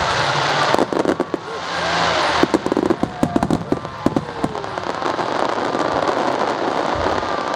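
Aerial fireworks in a finale barrage. A dense run of overlapping bangs runs from about one to four seconds in, then settles into a continuous crackling rush.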